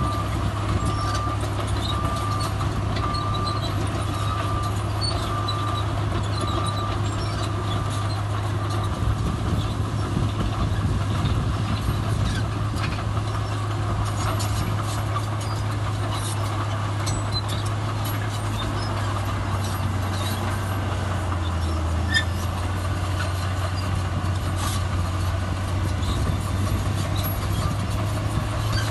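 Heavy diesel earthmoving machinery running steadily under load, with a reversing alarm beeping at an even pace that stops about eight seconds in.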